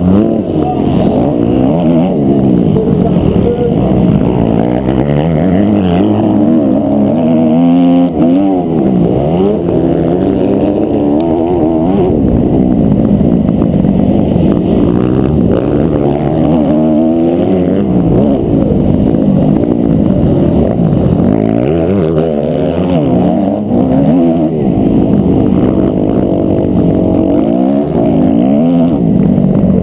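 250 cc four-stroke motocross bike engine heard from the rider's own mount, revving up and down over and over as the throttle is opened and shut through the corners and jumps, with the pitch climbing in each gear and dropping at each shift or braking. The sound is muffled, most of it low, as through a camera's waterproof case.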